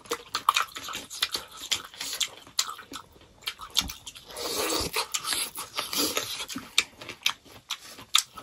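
People biting and chewing crisp raw cucumber slices close to the microphone: a run of many short, sharp wet crunches and mouth clicks.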